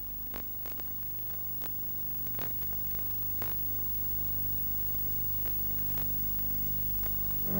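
Steady low electrical hum with faint hiss and scattered sharp clicks: noise from the transfer or recording in a gap between music tracks, not live sound.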